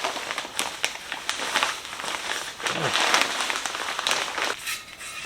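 Sand pouring into a welded angle-iron anvil stand: a gritty, crackling hiss with scattered small clicks.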